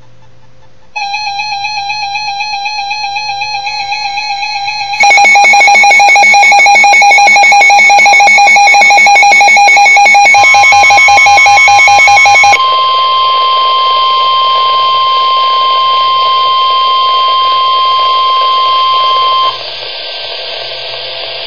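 Emergency alert tones. A warbling electronic tone starts about a second in, and a much louder pulsing buzz joins at about 5 s and stops near 12.5 s. A single steady tone begins over the buzz and holds for about nine seconds over a background hiss, then cuts off suddenly, like the weather radio's long warning alarm tone.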